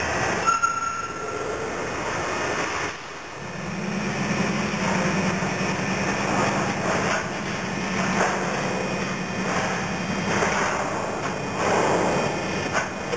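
Rotary coal car dumper at work: a steady low mechanical hum with a pulsing texture starts about three seconds in, over a wide rush of machine noise, with a few sharp metallic knocks.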